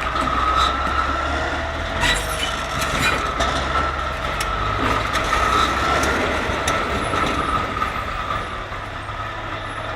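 A motor vehicle or machine running: a steady low rumble under a slightly wavering high whine, with a few scattered knocks.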